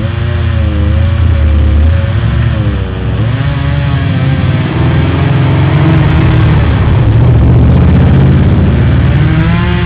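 Two-stroke chainsaw running, its engine pitch rising and falling as the throttle is worked during tree felling.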